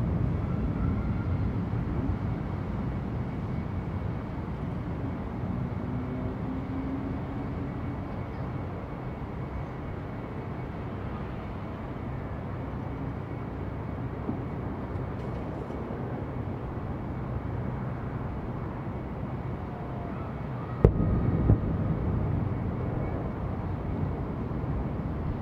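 Aerial fireworks seen from a distance: the rumble of a burst fades away at the start, low steady neighbourhood hum follows, and about 21 seconds in a shell bursts with a sharp bang and a second crack just after, then a rolling echo.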